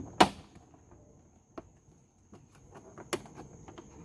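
Trim removal tool prying a plastic car door panel away from its pop-on clips: one sharp snap about a quarter second in, then scattered lighter clicks and ticks.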